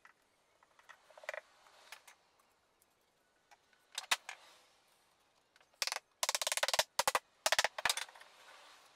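A few light wooden knocks, then several bursts of rapid rattling clatter about six to eight seconds in, from a pine board being handled and set onto the wooden chest frame.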